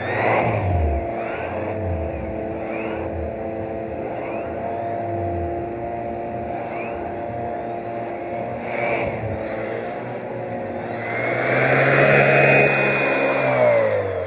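Vacuum cleaner motor running, its pitch and airflow shifting in a regular back-and-forth rhythm about once a second as it is worked over the floor. It gets louder near the end, then winds down with a falling whine.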